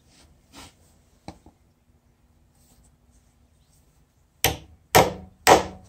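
Hammer striking an anchor set in a hole drilled through a wooden stud wall's bottom plate, driving it into the concrete slab. Two faint knocks in the first second and a half, then about four seconds in three sharp, loud blows about half a second apart.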